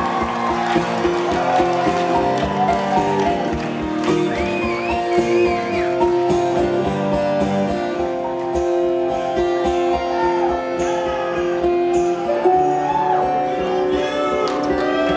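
Live rock band playing an instrumental passage of a song, with sustained chords over a steady drum beat, recorded from the audience.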